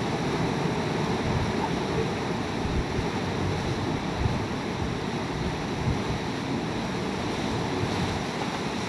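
Hurricane-force wind and wind-driven heavy rain making a steady, even noise, with gusts buffeting the microphone.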